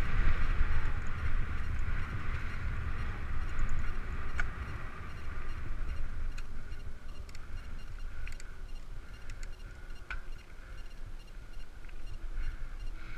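Mountain bike riding down a dry dirt trail: wind buffeting the microphone and knobby tyres rolling over dirt and gravel, louder in the first half. A few sharp clicks from the bike over bumps.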